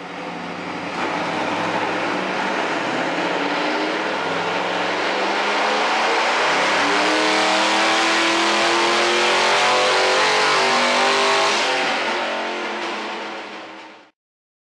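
The 306 ci V8 of a 1992 Mustang LX, fed by twin 50 mm turbos blowing into a Vortech S-trim supercharger, pulling hard on a chassis dyno: the engine note climbs steadily in pitch for about ten seconds as the revs rise under load, then fades away near the end.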